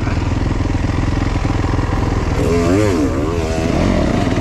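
Motocross dirt bike engine running, heard from a helmet-mounted camera; about halfway through, its revs dip and climb a few times as the throttle is worked.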